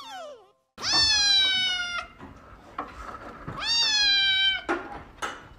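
Kitten meowing loudly twice, each a long high call of about a second that falls slightly in pitch.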